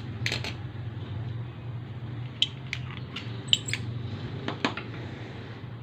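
Scattered small metallic clicks and taps as a locking plier (vice grip) gripping a hydraulic brake hose is handled, some in quick pairs, over a steady low hum.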